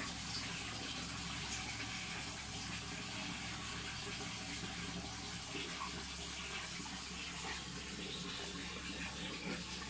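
Aquarium filter water running steadily, a continuous splashing wash of water over a low steady hum.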